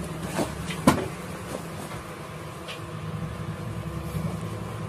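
Handling noise from a phone carried close against clothing: rubbing and a sharp knock about a second in, over a steady low hum.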